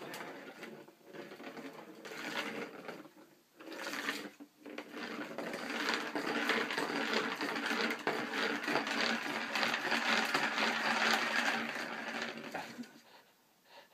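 A plastic ball spinning around the track of a round cat scratcher toy as a dog paws it, a steady rolling rattle that builds about four seconds in and fades away near the end.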